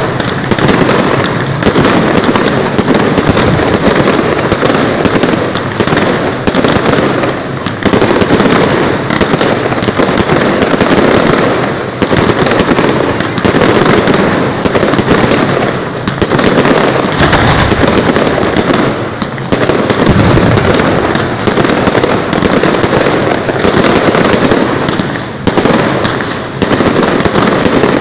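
Aerial fireworks bursting in quick succession, one report running into the next in a dense, loud, near-continuous barrage.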